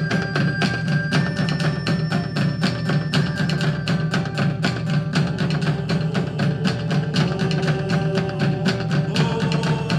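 Live band playing an instrumental passage: fast, steady percussion under long held melody notes that step from one pitch to the next.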